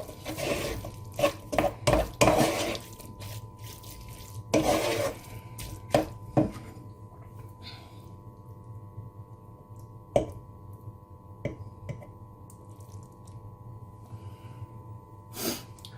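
Cutlery and dishes clinking and knocking: a busy run of taps and scrapes over the first few seconds, then only a few scattered knocks.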